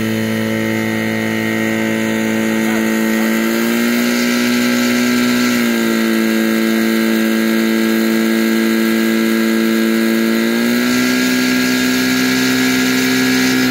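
Portable fire pump engine running steadily at high speed, pushing water through the hose lines to the nozzles. Its pitch steps up slightly, drops back, then steps up again near the end.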